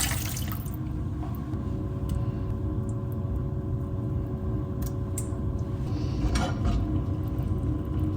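Running tap water shuts off about half a second in. Then comes a steady low hum with a few short, light clinks, as of dishes being handled.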